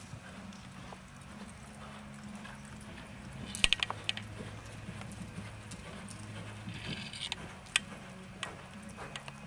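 Hoofbeats of a horse loping on soft arena dirt, over a steady low hum. About three and a half seconds in comes a cluster of sharp knocks, and near the end a single sharp click.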